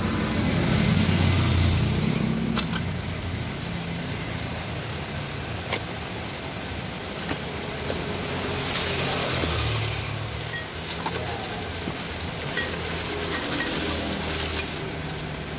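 Cardboard parts boxes and clear plastic bags being handled and rustled, with a few light clicks, over a steady low rumble that swells and fades a few times.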